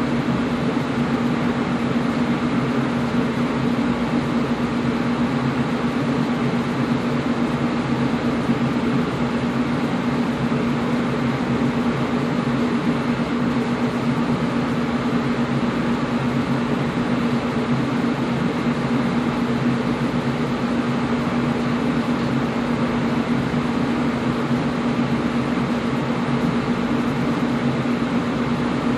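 Air conditioner running steadily: an even rush of airflow with a steady low hum under it, unchanging throughout.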